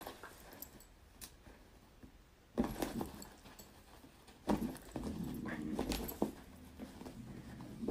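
A puppy making short yaps and growls as it plays with a curtain. The loudest sounds come about two and a half and four and a half seconds in.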